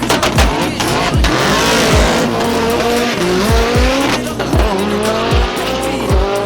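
A drag-racing street car accelerating hard down the strip: the engine pitch climbs and drops back at each gear change. Music with a heavy thumping beat plays under it.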